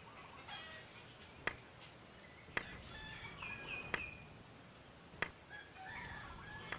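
Four sharp clacks of a hammer striking stones, about a second apart. Chickens cluck faintly in the background.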